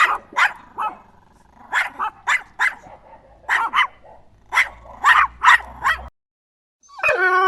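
Puppy yapping in quick runs of short, high-pitched barks. After a brief break near the end, a drawn-out, wavering howl begins.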